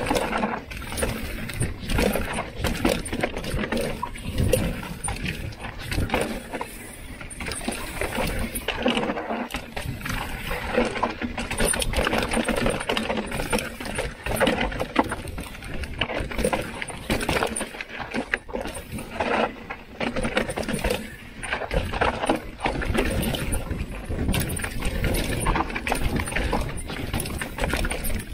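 Mountain bike descending a dry, dusty dirt trail: tyres crunching over dirt and rocks, with constant rattling and knocks from the bike over the bumps.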